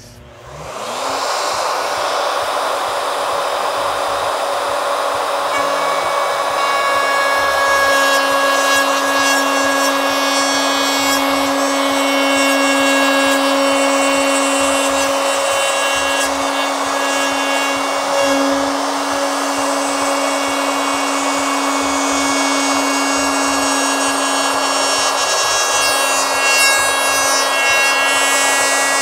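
2 HP variable-speed plunge router soft-starting, its whine rising over about the first second, then running steadily while it cuts a shallow first slot in a polyurethane foam surfboard blank. The pitch dips briefly twice midway.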